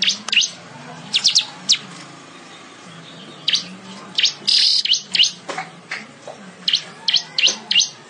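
Manyar weaver bird calling: sharp, short chirps, some single and some in quick clusters, with a brief buzzy hiss about halfway through.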